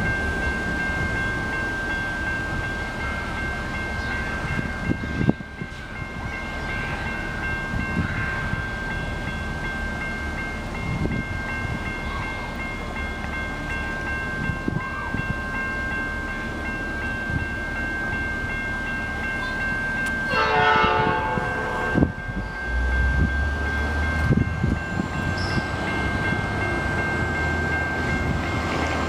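A distant Metra commuter train sounds its horn in one blast of about a second and a half, roughly two-thirds of the way through, as it approaches. A steady high ringing tone runs underneath throughout. Near the end a low rumble grows as the train draws closer.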